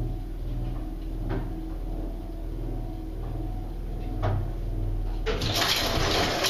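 Antique Westbrook elevator car travelling, with a steady low hum from its drive and a couple of faint clicks. Near the end comes a loud clattering rattle as the car arrives at the floor.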